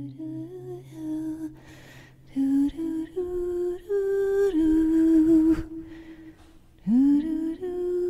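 A voice humming or singing a slow wordless tune in long held notes, with one note swooping up into place near the end, over a faint low drone in the first couple of seconds.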